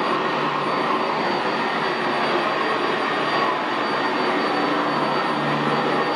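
Sanitaire SC679J commercial upright vacuum running steadily over carpet: an even rush of motor and air noise with a thin high whine.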